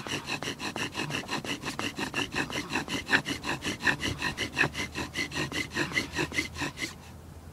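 Bow drill in use: a wooden spindle spun back and forth by a bow, grinding and squeaking in the fireboard's socket to make fire by friction. It makes an even, rapid rasping rhythm of about five strokes a second that stops suddenly about seven seconds in.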